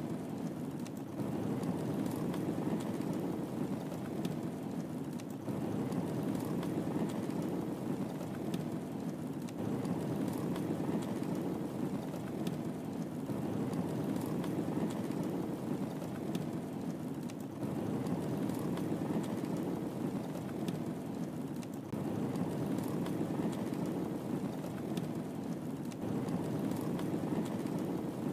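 Wood fire burning in a fireplace: a steady low rushing of flames with scattered small crackles and pops.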